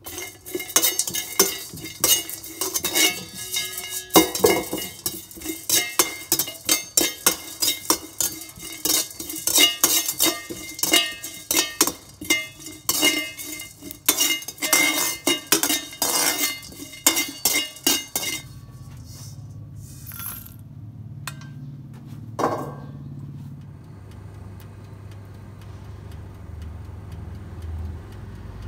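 A metal slotted skimmer clinking and scraping in a nonstick wok as whole spices are stirred dry, a fast, uneven run of clinks and knocks for about eighteen seconds. After that comes a steady low hum from a running electric oven.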